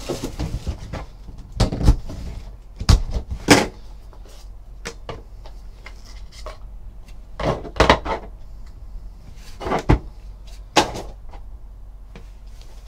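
Hands handling a cardboard trading card box and a stack of cards on a tabletop: about nine irregular knocks and taps as the box is opened and set down and the cards are squared up.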